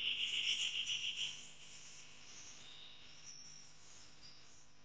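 A high-pitched, rapidly pulsing insect trill that stops about a second in, leaving only faint, scattered high insect chirps.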